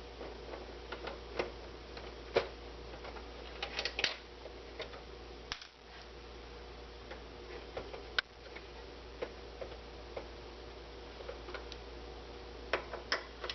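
Irregular small clicks and taps of a screwdriver working screws out of a PlayStation 3's chassis and casing, over a steady faint hum.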